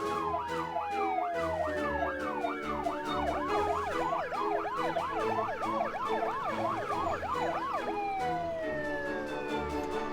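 Cartoon ambulance siren in a fast rising-and-falling yelp, about four sweeps a second, with a long falling wail near the start and again near the end, over background music.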